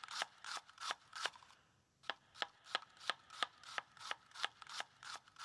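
Knife chopping baby bella mushrooms on a cutting board: a steady run of sharp cuts, about three a second, with a short pause about two seconds in.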